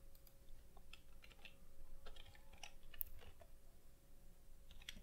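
Faint, scattered keystrokes on a computer keyboard as code is typed.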